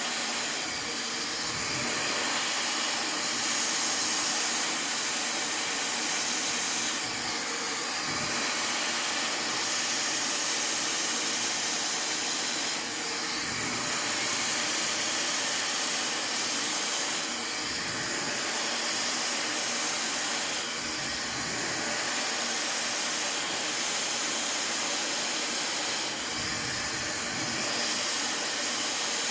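Fentgo negative-ionic hair dryer blowing on high power and hot heat: a steady rush of air with brief low gusts every few seconds.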